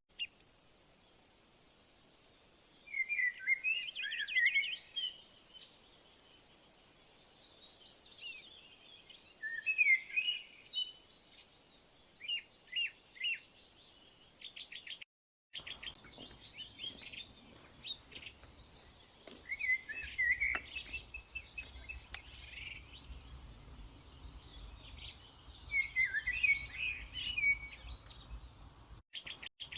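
Songbirds chirping and singing in short, repeated trills and phrases with pauses between them. A brief silent gap falls about halfway, after which a low steady rumble runs underneath the birdsong.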